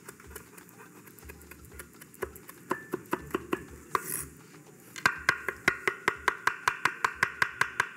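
Chef's knife chopping fresh parsley on a wooden cutting board. Scattered taps at first, then from about five seconds in a quick, even chopping rhythm of about four to five strokes a second.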